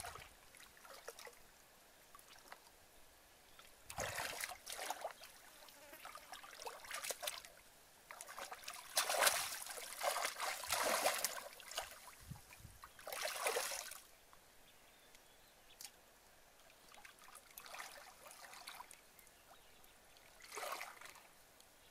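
Hands sloshing and splashing through shallow muddy water in a string of irregular bursts, with quieter spells between.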